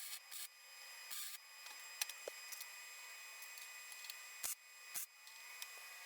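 Faint, scattered clicks and knocks with a few short scrapes and rubs: hand work on a metal framework, parts being handled and fitted. The sharpest click comes about two seconds in.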